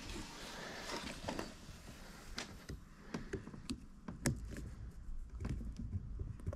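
Scattered light clicks and knocks of tools and metal parts being handled while a snap ring is worked onto an A/C compressor's pulley.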